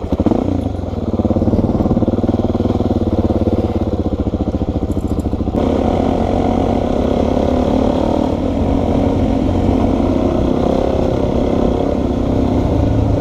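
Suzuki DR-Z400's single-cylinder four-stroke engine running as the dirt bike rides along a forest trail, heard from the bike itself. The sound changes abruptly about five and a half seconds in and then runs on steadily.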